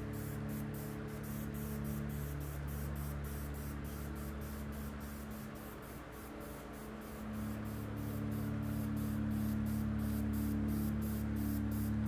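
Background music: sustained low chords under a steady, fast ticking beat of about four ticks a second; the low chords drop away briefly in the middle and come back fuller.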